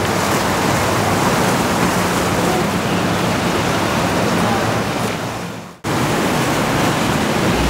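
Steady rushing noise of surf and wind at a rough ocean inlet. It fades out about six seconds in and comes straight back in at once.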